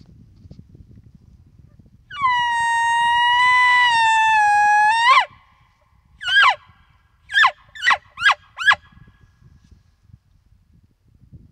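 Bull elk bugle blown on a hand-held bugle tube call: a long high whistle for about three seconds that rises slightly and breaks downward at the end, followed a second later by a short falling note and then four quick falling chuckle notes.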